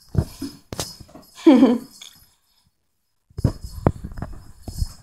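Scattered light taps, clicks and knocks as a kitten bats at a toy mouse hanging on a string, with a short sliding call about a second and a half in.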